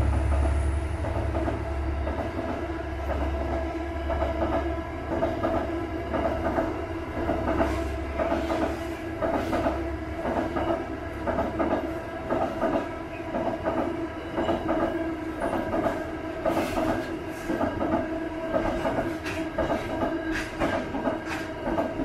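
Freight train wagons rolling across a steel girder rail bridge overhead, a steady rumble with repeated wheel clicks over the rail joints that grow frequent from about a third of the way in. The deep engine rumble of the Aurizon diesel locomotive at the head of the train fades over the first several seconds.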